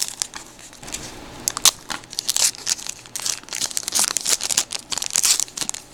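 Plastic wrapper of a baseball trading-card pack being torn open and crinkled by hand: a run of irregular sharp crackles.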